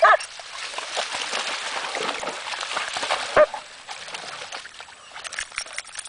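Dogs splashing through shallow water as they play-fight, with a short bark right at the start and another single bark about three and a half seconds in; the splashing dies down over the last couple of seconds.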